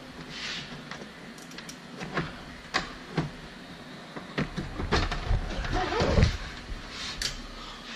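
Scattered clicks, light knocks and rustling from hands fishing wiring through a pickup's engine bay, busier and louder from about five to six and a half seconds in.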